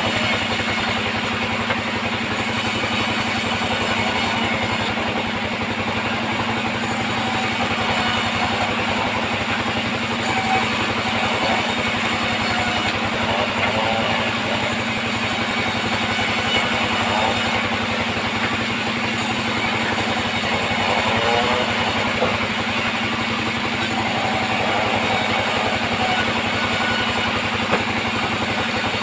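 A band sawmill running with a steady mechanical drone and hum that holds at an even level throughout.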